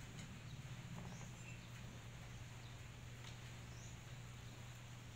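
Faint short high squeaks from a rat, a couple of seconds apart, over a steady low hum, with a light scuff in the dirt about a second in.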